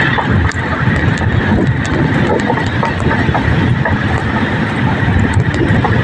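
Wind buffeting a phone microphone while riding a bicycle: a loud, steady, rough noise with scattered clicks.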